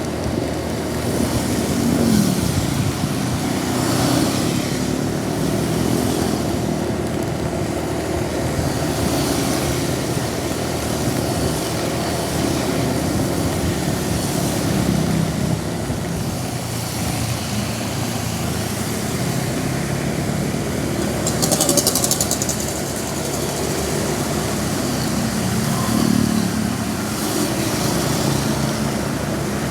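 Road traffic passing on a rain-soaked road in heavy rain: a steady engine rumble with tyre hiss that swells as vehicles go by. A short rapid rattle comes about two-thirds of the way in.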